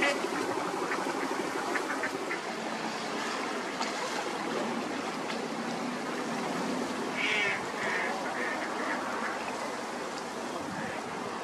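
Ducks quacking: a few calls near the start and a brighter group of quacks about seven to nine seconds in, over steady background noise.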